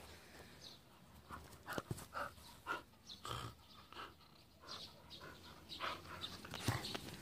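Jindo dog panting close by with a tennis ball in its mouth, in quick irregular short breaths that start about a second in.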